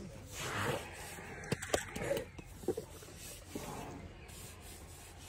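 Elephants moving and feeding right beside the microphone: rough rubbing and rustling, with a few sharp cracks about a second and a half in and again a little later.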